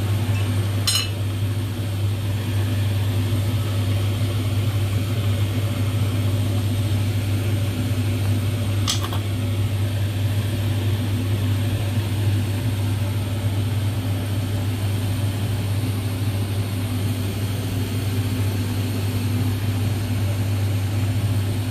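Steady low mechanical hum of a kitchen fan or motor running, with two brief sharp clicks, one about a second in and one about nine seconds in.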